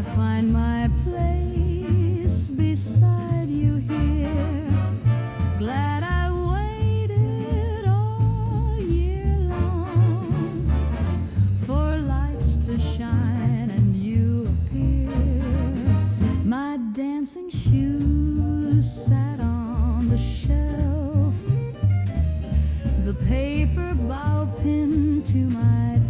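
Swing-style dance band music: a wavering lead melody with heavy vibrato over a steady walking bass line, cutting out briefly about two thirds of the way through.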